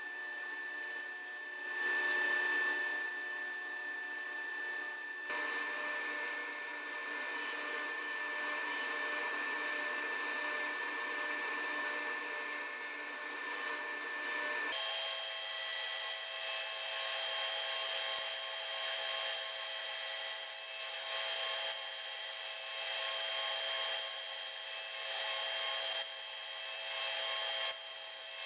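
Powermatic table saw running and cutting softwood boards: a rip along the fence, then repeated notch cuts on a crosscut sled. A steady blade whine sits over the cutting noise, and its pitch jumps to a different note about halfway through.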